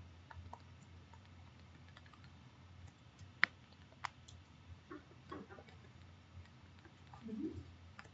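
Faint scattered ticks and clicks of a stylus tapping and writing on a tablet screen, with two sharper clicks a little before the middle, over a low steady hum.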